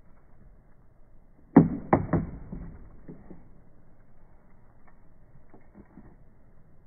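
A small object dropped onto an upturned clear plastic box, clattering three times within about half a second. Faint taps and scrapes follow as a puppy paws and noses at the object on the plastic.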